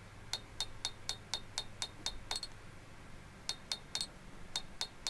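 Hand hammer striking a red-hot block of mild steel on an anvil, drawing it down to a taper: quick, ringing metallic blows about four a second, a pause of about a second midway, then more blows.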